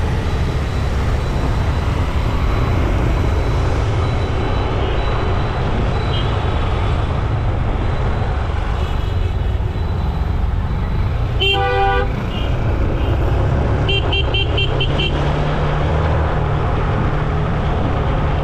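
Steady road and wind rumble of a ride through traffic. A vehicle horn honks once for about half a second in the middle, and a few seconds later comes a quick run of about five short, high beeps.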